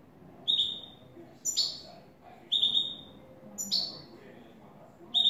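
Caged European goldfinch calling: a short, bright, high note repeated about once a second, five times.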